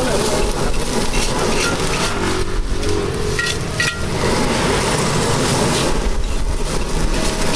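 Fried rice being stir-fried in a large steel wok: a metal spatula scraping and tossing the rice against the pan in repeated strokes, with sizzling, over a steady low rumble.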